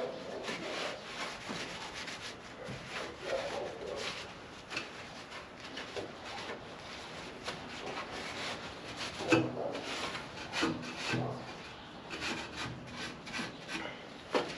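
Shop towel soaked in acetone being rubbed over a car body panel in repeated scrubbing wipes, cleaning and degreasing the metal before paint.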